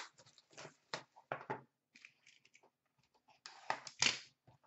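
Hands opening a hockey card box and its packaging: a string of short clicks and crackles of cardboard and wrapper, then a louder rustle about three and a half seconds in.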